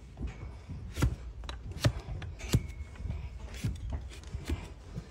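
A wide flat hoof knife slicing and scraping away overgrown hoof horn and sole, in a series of short, crisp cutting strokes, roughly one every half second to second.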